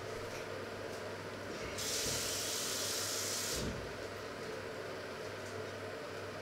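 Kitchen tap running into a glass for about two seconds, a steady hiss, then turned off. A low steady hum sits underneath.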